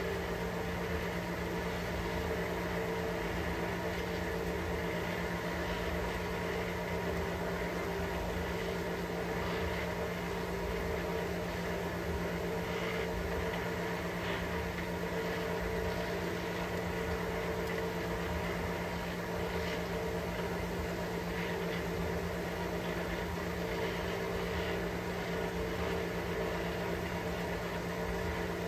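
Steady machine hum with several fixed tones, unchanging throughout, with faint light ticks now and then.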